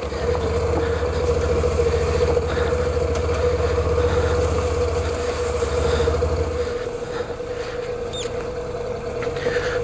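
Motorcycle engine running at a steady low speed along a dirt trail, its low pulsing drone easing off about two-thirds of the way through, with a steady whine throughout.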